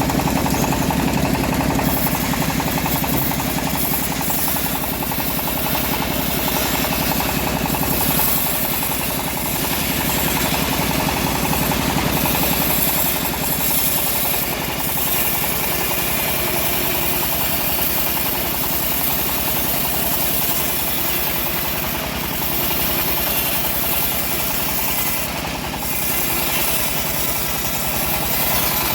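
Home-built engine-driven bandsaw mill running steadily as it saws an old teak log, a continuous dense machine noise with the engine's drone underneath.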